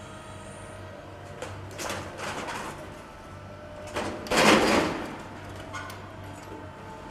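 Heavy demolition machinery running steadily while building rubble crunches and crashes down; the loudest crash comes about four and a half seconds in.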